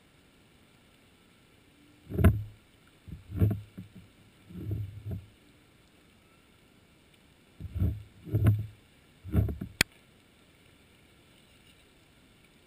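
A series of six low, dull thumps at irregular intervals, then a sharp click, heard underwater through a camera housing.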